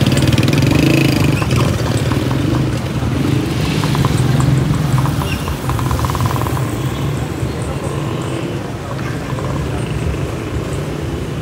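Motorcycle engine running steadily, heavier in the first half and easing off after about six seconds, with indistinct voices in the background.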